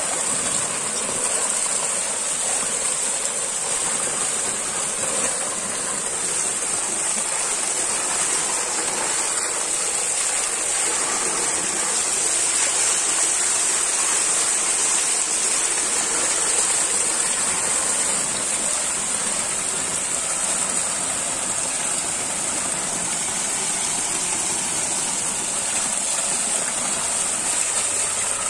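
Water pouring steadily from a small brick culvert outlet and falling down its face, with a steady high-pitched hiss over it.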